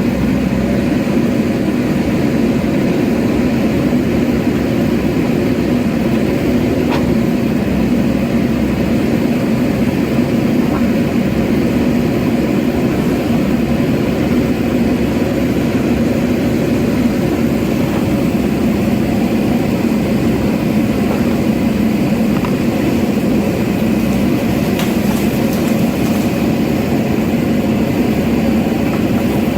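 An engine running steadily with a constant low hum, with a faint click or two.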